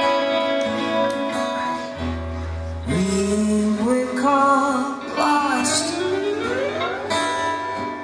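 A live band playing a song: acoustic and bass guitars with drums. A lead voice comes in about three seconds in, and a note slides upward near the end.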